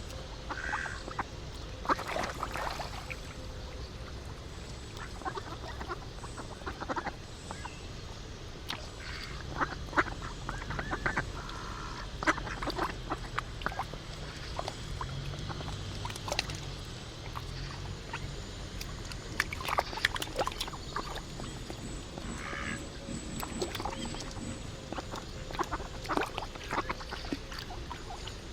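Ducks and geese calling: short quacks and honks scattered throughout, over a steady low rumble.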